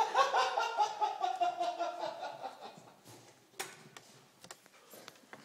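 A person laughing in a run of quick pulses that slowly fall in pitch and fade out about two and a half seconds in. A single sharp knock follows about a second later, with a few faint clicks after it.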